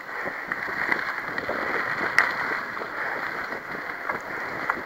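Mountain bike rolling along a dirt trail, heard from on the bike: a steady rush of tyre noise with frequent small rattles and clicks, and one sharper click about two seconds in.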